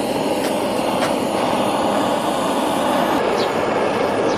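Handheld butane cartridge torch burning with a steady, loud rushing flame, played on charcoal briquettes to light them.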